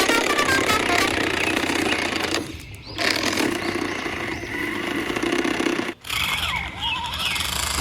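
Engine noise and motor whine from radio-controlled model construction trucks. It is a dense mechanical running sound that drops out briefly twice, with a whine rising and falling near the end.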